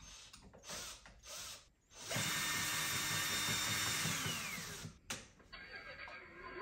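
A few light knocks. Then a small electric motor runs through its gears for about three seconds and winds down, its pitch falling as it stops.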